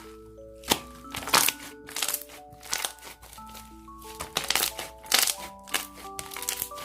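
Slime being squeezed and poked by hand, giving irregular crackling, crunchy pops, over a music-box tune.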